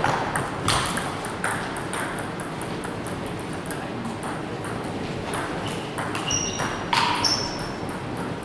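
A table tennis ball clicking sharply off the bats and table during rallies, a run of quick ticks, with a few short high squeaks about six to seven seconds in.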